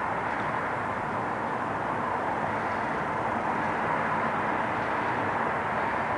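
Steady, even outdoor rushing noise with no distinct events, unchanging throughout.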